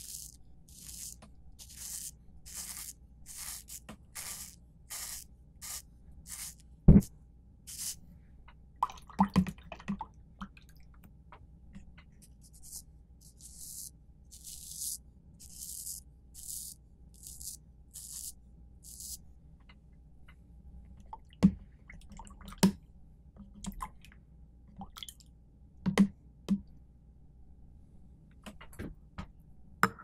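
Straight razor scraping short strokes through shaving cream on the skin of a forearm, close to the microphone: a run of crisp scrapes about two a second, then another run in the middle, with a few sharp knocks and taps in between, the loudest about seven seconds in.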